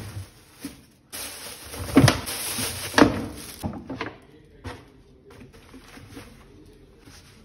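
Kitchen things being lifted out of a drawer: a plastic basin and cutting boards knocking and scraping against the drawer, with rustling. There are two sharp knocks about two and three seconds in, then smaller clatters.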